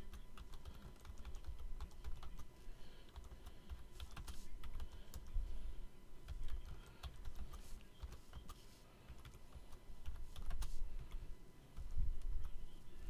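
Typing on a computer keyboard: quick runs of key clicks broken by short pauses.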